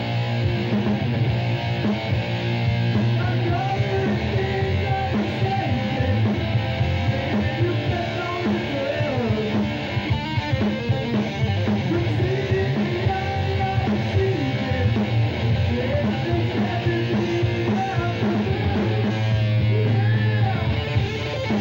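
Heavy metal band playing live: a male lead singer's vocal over electric guitar and drums.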